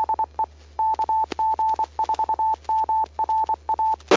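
Amateur radio repeater sending its Morse code identification over the radio: a single tone of about 900 Hz keyed in short and long beeps for about four seconds. This is likely the 145.430 MHz KG4MRA repeater identifying itself as the transmission ends.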